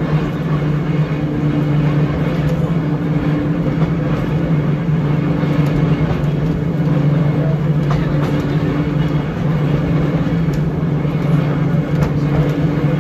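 Electric trolley car rolling along the track, heard from inside the car: a steady low hum from its motors and gearing over the rumble of steel wheels on rail, with a few faint clicks.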